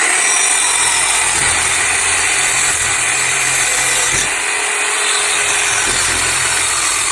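Reciprocating saw with an 18 TPI bi-metal blade cutting through a thin piece of cheap iron (about 1/16 to 1/8 inch). The cut makes a loud, steady, high-pitched metal rasp, and the blade goes through easily.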